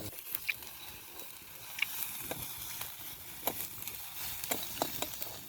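Chopped onions and green chillies sizzling as they fry in a pan, with a few sharp clicks and scrapes of a spoon stirring them against the pan.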